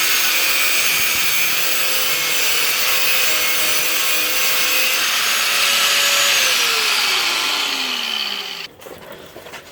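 A power tool's motor running at a steady speed, then released and spinning down with a falling pitch for about two seconds before it cuts off.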